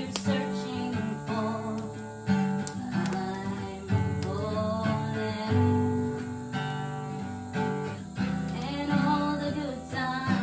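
Acoustic guitar being strummed and picked, a continuous run of chords.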